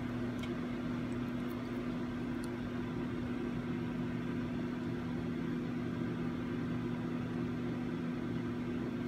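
Steady low mechanical hum, such as a small fan or motor running, with a few faint ticks in the first few seconds.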